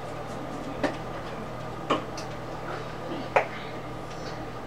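Three sharp clicks of a small spice container being handled and tapped over a cooking pot, spaced about a second apart, the last the loudest, over a steady low hum.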